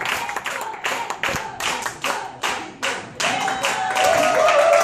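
Audience applauding with many separate hand claps that thin out partway through, then voices rise near the end.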